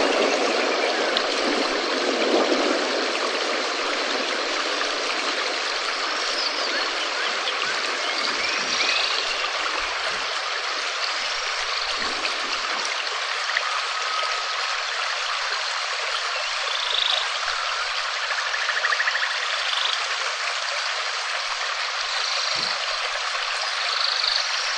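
Steady rain falling in a dense, even hiss, with a few faint short chirps here and there.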